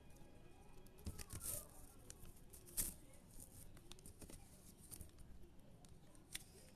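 Faint plastic clicks and clacks of a twisty puzzle being turned by hand, irregular, with one louder click near the middle.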